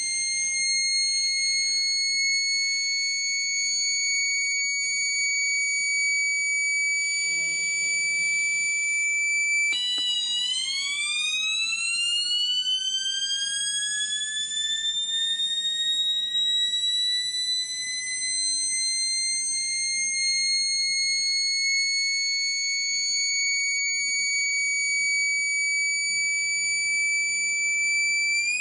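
Microcontroller-generated electronic factory-siren tone: a high, steady wail that drops suddenly about ten seconds in, then slowly winds back up to full pitch, like a motor siren spinning up again.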